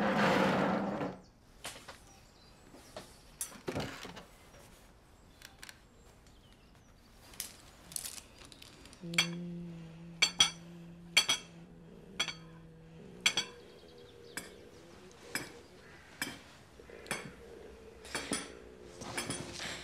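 Metal spoon clinking and scraping against a ceramic bowl: a series of sharp clinks, with a low held tone coming in about halfway through.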